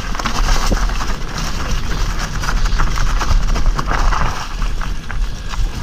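Merida eONE SIXTY 900E electric mountain bike rattling and knocking as it rides fast over a rough, leaf-covered dirt trail, with tyre noise and a steady wind rumble on the bike-mounted camera's microphone.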